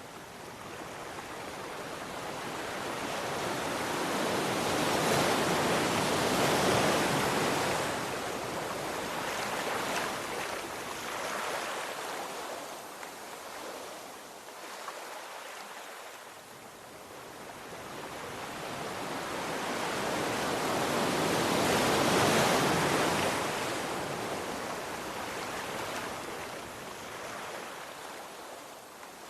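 Sea waves breaking and washing on a shore: two slow swells of surf, one building to a peak about a quarter of the way in and another about three-quarters of the way in, each fading into a softer wash between.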